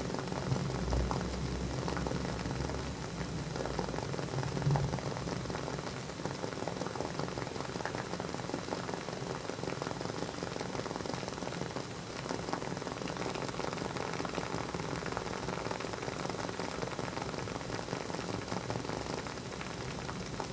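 Wooden wick of a WoodWick candle crackling as it burns: a steady stream of small, quick pops and fizzing like a tiny fireplace fire. A soft low bump about five seconds in.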